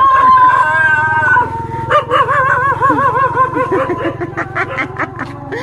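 A dog howling: long held notes at first, then a wavering, warbling pitch. A steady low hum runs underneath.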